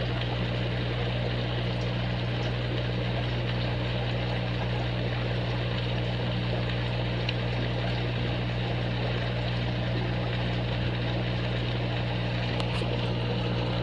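Fishroom aquarium pumps and filtration running: a steady low hum with a constant hiss above it.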